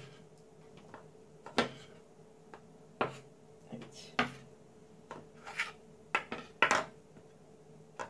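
Kitchen knife and a small plastic dish knocking and scraping on a tabletop as leftover cheese crumbs are swept up: about seven sharp clacks, a second or so apart.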